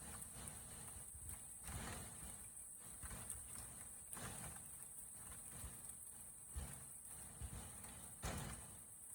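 Hailstorm: hailstones striking in irregular knocks and thumps over a steady hiss, with a few louder clattering bursts.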